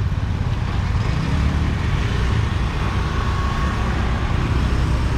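Busy street ambience: a steady low rumble of passing road traffic.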